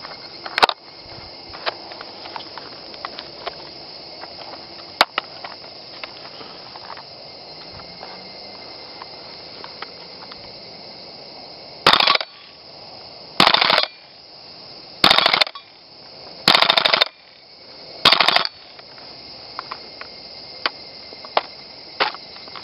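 WE G39C gas blowback airsoft rifle firing five short full-auto bursts about a second and a half apart, the bolt cycling with each shot. Before the bursts come a few sharp metallic handling clicks.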